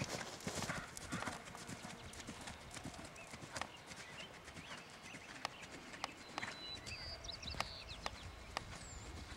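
Hoofbeats of a dapple-grey horse cantering on soft arena sand footing, a steady run of dull thuds.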